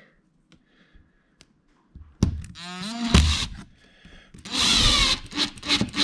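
Makita cordless driver driving a screw through a mounting hole of a plastic Wago junction box. The motor whines up about two seconds in and runs again near the end.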